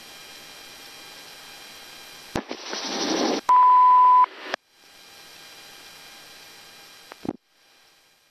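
Steady hiss of police helicopter radio audio. About two and a half seconds in, a click and a burst of radio static, then a loud steady high beep lasting under a second, more static, and a second click before the audio cuts to near silence.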